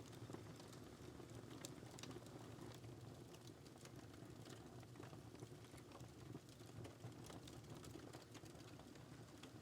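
Wood fire crackling quietly in a fireplace: scattered small snaps and pops over a steady low rush of the flames.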